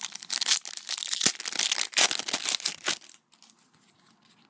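Wrapper of a Panini Prizm trading-card pack being torn open and crinkled, a dense crackle that stops about three seconds in.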